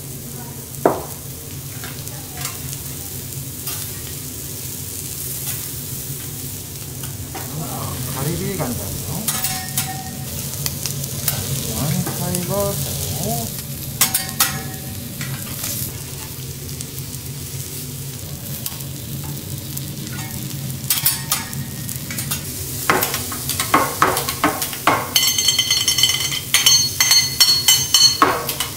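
Seafood sizzling on a steel teppanyaki griddle, with a few sharp clicks of metal utensils. Near the end, metal spatulas clatter rapidly and scrape across the griddle with a ringing metallic squeal.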